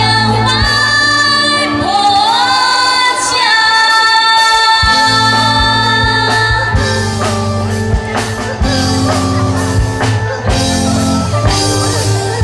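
Two women singing a Chinese pop song over a live band with keyboard and drum kit. A long held note slides upward about two seconds in, and drum hits come in more strongly in the second half.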